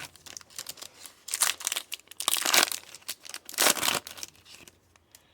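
Trading-card pack wrapper being torn open and crinkled, a run of crackling rustles lasting about three seconds and dying away near the end.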